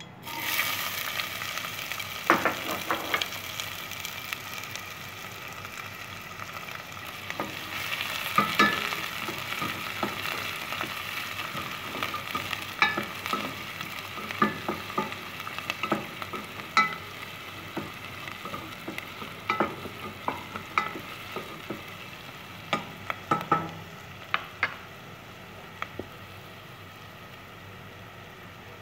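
Chopped onion and garlic sizzling in hot olive oil in a stainless steel pot, starting suddenly as they drop into the oil. A wooden spoon stirs them, knocking and scraping against the pot many times.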